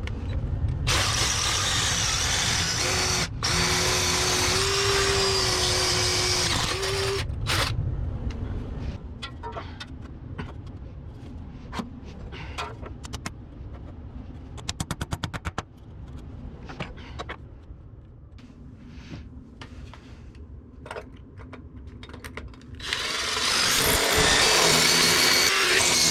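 Power drill running in two long runs, about six seconds near the start and about three seconds near the end, drilling into a concrete block wall. In between come scattered clicks and knocks, with a brief rapid rattle about halfway through.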